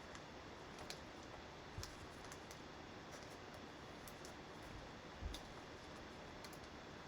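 Faint, scattered clicks and a few soft taps of trading cards and packs being handled on a table, over a low steady hiss.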